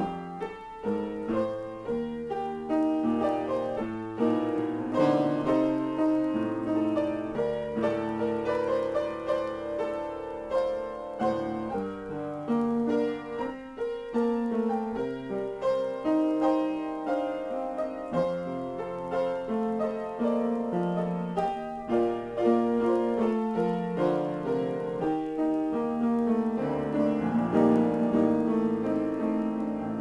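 Solo piano improvisation, played continuously as a steady stream of notes and chords.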